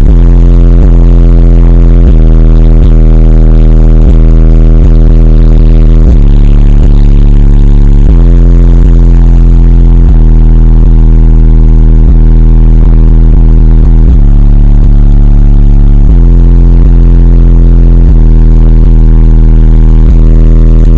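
Car stereo with twelve Sundown Audio SA-12 subwoofers playing a bass-heavy rap track at extreme volume. Deep bass notes change about every two seconds, some gliding in pitch, and the sound is loud enough to push the recording to its limit.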